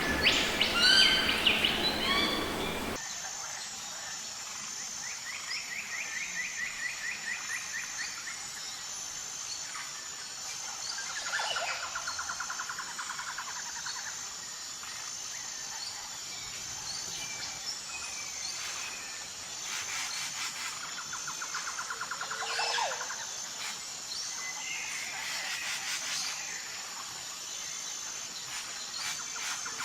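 Rainforest birds calling and singing, with repeated rapid trills and chirps, over a steady, high, pulsing insect chorus. The first few seconds hold louder, busier bird calls, which then give way to the calmer chorus.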